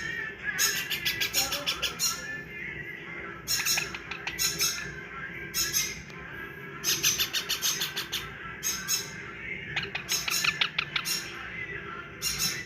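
Yellow ringneck parakeet chicks squawking: repeated harsh, raspy calls, each a rapid train of pulses, in groups about every one to two seconds.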